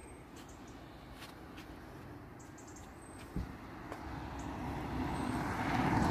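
A car approaching on the road, its engine and tyre noise growing steadily louder over the last two seconds.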